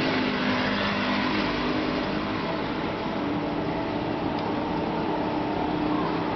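Steady mechanical whir with a low hum that wavers slightly in pitch, unbroken throughout.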